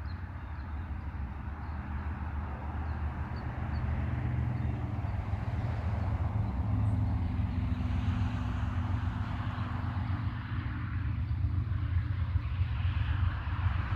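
Diesel locomotives at the head of a loaded coal train approaching, their engines a low steady drone that grows louder over the first few seconds.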